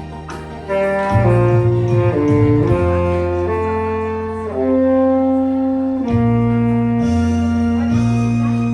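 Tenor saxophone playing a slow melody: a phrase of notes stepping downward, then long held notes, over a backing accompaniment with a steady bass line.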